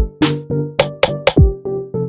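Electronic background music with a drum-machine beat: punchy kick drums and bright snare or hi-hat hits over held synth notes.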